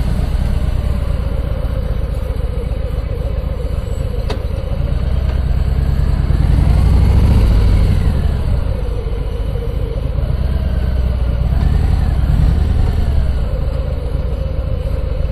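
Harley-Davidson Milwaukee-Eight V-twin engine running at low speed, heard from the rider's seat: a steady low rumble with the engine note rising on the throttle about six to eight seconds in, then dropping back, with smaller rises later.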